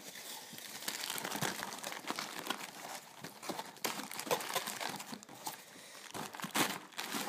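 Plastic packaging crinkling and rustling as it is handled, in dense irregular crackles with a few sharper snaps.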